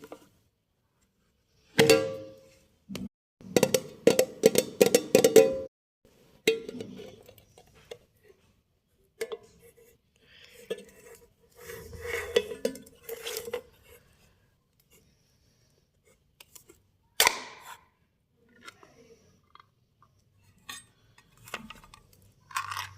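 A wax heater machine being opened and handled: bursts of clicks, clinks and clatters from its lid and pot, with short pauses between them.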